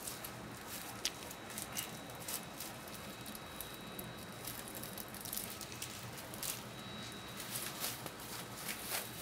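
Thin plastic trash bag crinkling and rustling as gloved hands pull its drawstring tight and knot it, many short crisp crackles over a faint steady hiss.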